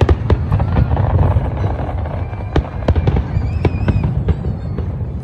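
Fireworks show: many bangs and crackles at irregular spacing over a continuous low rumble, with a few whistling tones in the middle.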